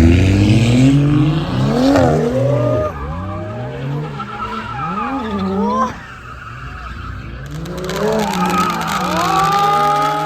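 A car drifting: its engine revving up and dropping back again and again, with tyres squealing on the tarmac. The sound falls away about six seconds in, then a car revs up again toward the end.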